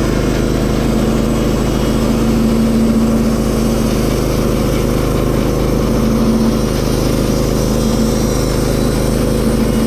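Engine of a portable band sawmill running steadily at a constant speed, with a continuous hum. It cuts off abruptly at the end.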